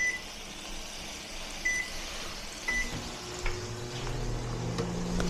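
Microwave oven control panel beeping a few times as buttons are pressed, then the oven starts about three seconds in and runs with a steady low hum, with a couple of faint clicks.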